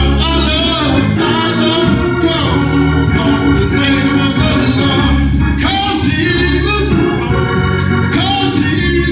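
A man singing a gospel song into a microphone over organ accompaniment, the organ holding steady chords beneath his voice.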